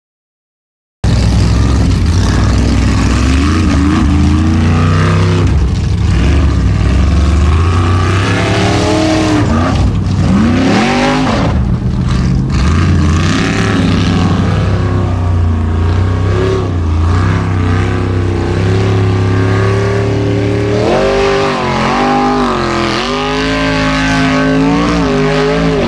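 Formula Offroad unlimited-class buggy's engine revving hard under load as it claws up a steep dirt slope. It starts abruptly about a second in, and its pitch rises and falls again and again with the throttle.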